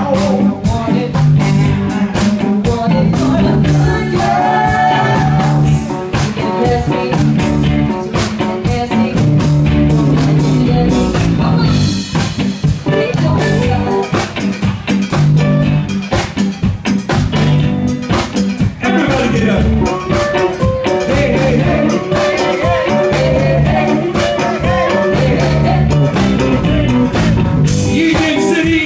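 Live band playing at full volume, with drum kit and electric guitar and a woman singing into a microphone.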